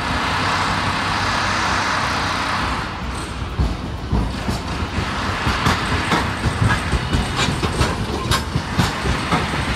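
Hiroden Green Mover LEX low-floor streetcar rolling past close by: a steady rushing noise, then from about four seconds in a run of sharp, uneven clicks and clacks as its wheels cross the rail joints and points.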